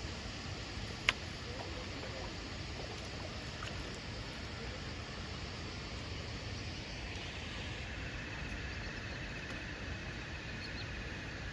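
Steady outdoor rushing noise of running water and air at a riverbank, with a single sharp click about a second in and a faint, fast-pulsing trill joining after about seven seconds.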